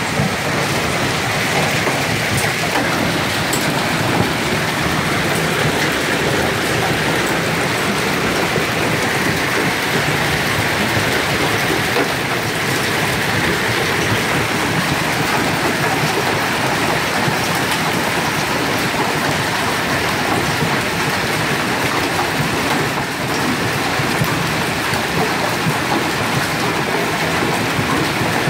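Hailstones pelting cars' metal bodywork and glass in a heavy, unbroken storm, a dense steady mass of small impacts.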